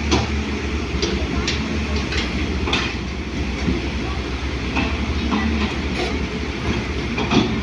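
Hydraulic excavator's diesel engine running steadily under work, with sharp metallic clanks and knocks coming irregularly, about nine of them. The loudest come right at the start and near the end.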